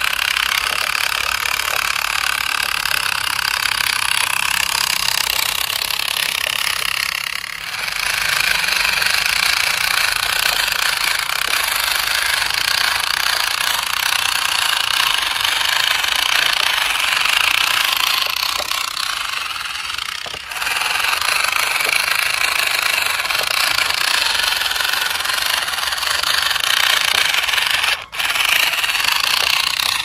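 Small electric motor and plastic gearbox of a radio-controlled toy truck running, a steady loud buzzing whir that drops out briefly three times.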